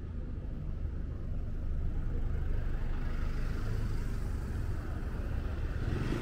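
Road traffic: a steady low rumble of vehicles, with a passing car's engine and tyres growing louder about two seconds in.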